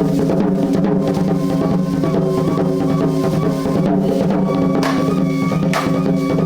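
Music with sustained pitched tones and drums, with a few sharp drum hits near the end.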